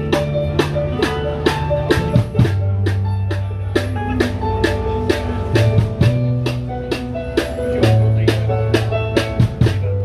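Live band playing a song's instrumental intro: a drum kit keeps a steady beat of about four hits a second while an electric bass holds long, loud low notes that change every couple of seconds, with sustained keyboard and guitar notes above.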